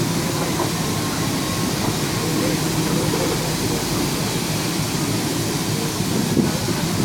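EMU commuter train's coaches rolling along the platform: a steady rumble of wheels and running gear with a low hum.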